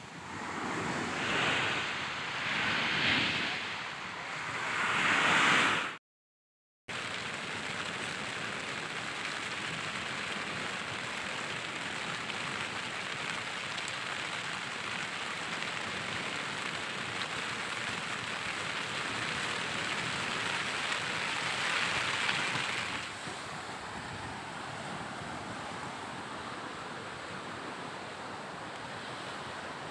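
Heavy rain and wind on a tent. Three loud swelling gusts come in the first few seconds, then, after a brief dropout, a steady rush of rain.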